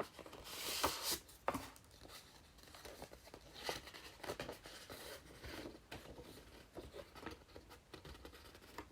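A paper envelope being opened by hand and the letter taken out: paper rustling and crinkling. The loudest rustle lasts about half a second near the start, followed by lighter handling of paper with small clicks.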